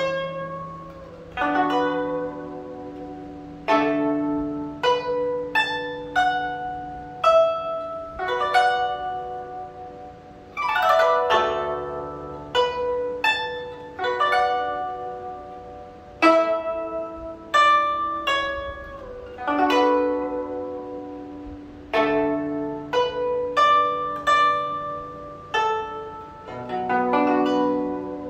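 Solo guzheng played by plucking: a slow melody of single ringing notes and chords that die away, with a glissando swept across the strings about ten seconds in.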